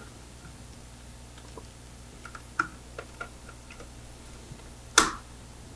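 Scattered light clicks and taps of a small screwdriver and wire being worked into the screw terminal block of a Gecko G540 stepper drive. A sharper click comes about two and a half seconds in and the loudest one about five seconds in.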